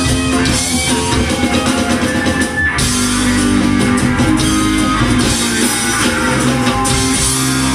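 Live rock band playing: acoustic and electric guitars, bass guitar and drum kit, amplified through a stage PA. The sound thickens with a heavier low end about three seconds in.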